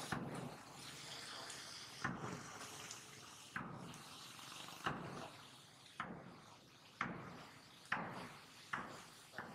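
A series of short, sharp knocks or taps, about one a second at uneven intervals, each dying away quickly, over a faint steady hiss.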